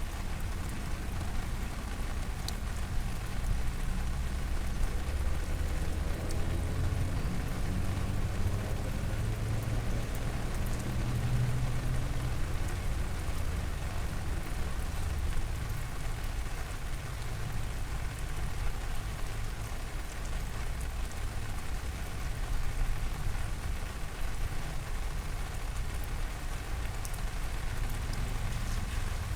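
Steady rain falling, a continuous hiss of drops on surfaces, with a low rumble underneath that swells for several seconds about a third of the way in.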